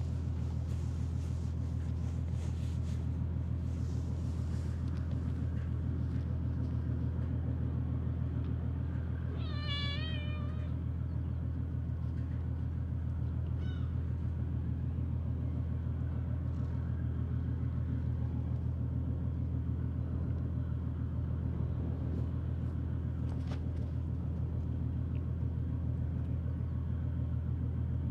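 A cat gives one wavering meow a little under ten seconds in, then a short faint cry a few seconds later, over a steady low rumble.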